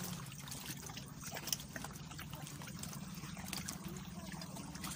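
Shallow seawater trickling and lapping against coral rock, with many small drips and splashes. A sharp tap about a second and a half in is the loudest sound.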